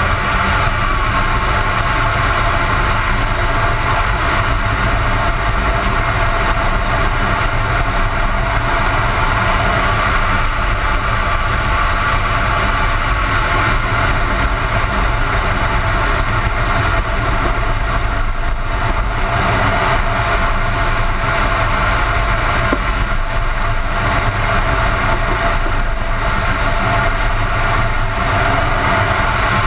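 Small gas turbine engine of a radio-controlled Aermacchi MB-339 model jet running on the ground, heard from inside the model's fuselage: a steady loud rush with a high whine whose pitch steps up and down slightly a few times.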